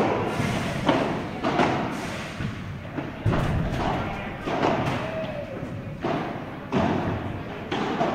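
Padel rally: the ball struck with solid padel rackets and bouncing, giving sharp hits about once a second at uneven spacing, each echoing in a large indoor hall.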